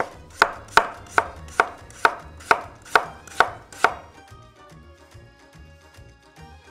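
Kitchen knife slicing a peeled raw potato into thin slices on a wooden cutting board: about ten even strokes, a little over two a second, each a crisp knock of the blade through the potato onto the wood. The cutting stops about four seconds in.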